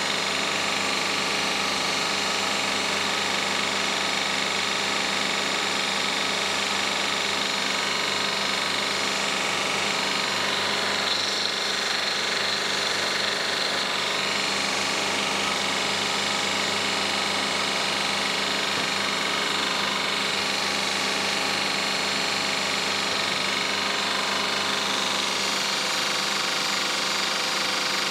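Electric angle grinder running steadily, working a plastic anti-squeak pad for a pickup's leaf springs. Its even, high-pitched whine holds at one level throughout.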